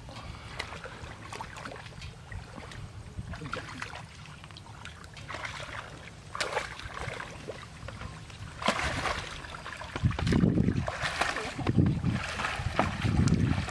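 Splashing and sloshing of hands and feet in shallow muddy water over a steady low hum from a small petrol water pump engine. From about ten seconds in, wind buffets the microphone in loud gusts.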